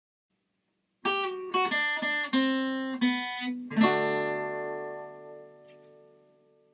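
Short acoustic guitar phrase: a quick run of plucked notes and strums starting about a second in, ending on a final chord that rings out and slowly fades.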